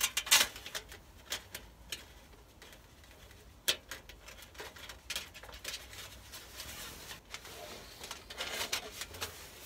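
Thin metal parts of a stovepipe roof protector clicking and clinking as they are slotted together by hand: irregular sharp clicks, the loudest near the start and about four seconds in.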